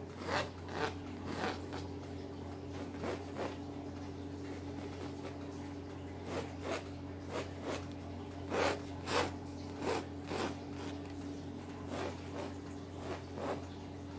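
Pencil sketching on a stretched canvas: short scratchy strokes at an irregular pace, a few louder ones a little past the middle, over a steady low hum.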